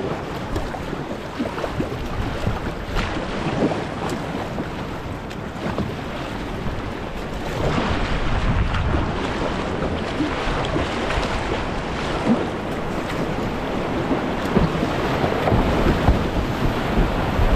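Creek whitewater rushing loudly through rapids, with wind noise on the microphone; the water gets louder about seven and a half seconds in.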